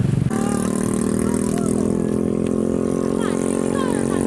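Small engine idling steadily, most likely the motorcycle parked beside the people: one even, unchanging hum. A louder low buzz from the previous shot stops just as it begins.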